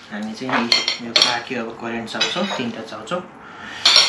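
Metal tongs clinking and scraping against a non-stick frying pan as noodles are lifted out and served, with a few sharp clacks, the loudest near the end.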